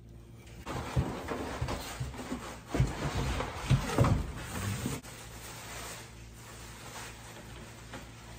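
Plastic bubble wrap crinkling and a cardboard box being handled while plastic-wrapped jars are unpacked, with several thumps; after about five seconds it settles to a low steady room hum.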